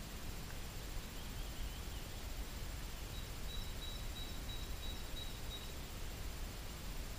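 Forest ambience: a steady low rumble of background noise with faint bird chirps about a second in. A thin high note holds steady for a few seconds in the middle.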